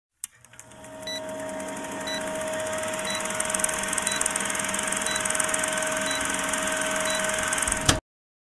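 Old-film countdown leader sound effect: film projector running with steady crackle and hiss, and a short high beep once a second, seven in all. It ends with a sharp click and cuts off suddenly.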